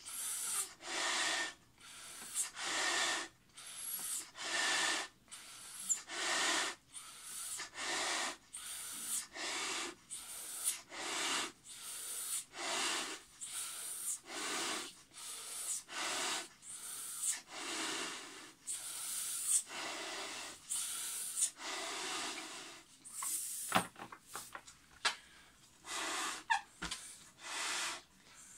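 A person breathing hard while blowing up a 36-inch latex balloon (Q36) by mouth: loud gasping inhales alternate with breaths blown into the balloon's neck, about one a second in a steady rhythm. A few short clicks come about three-quarters of the way through.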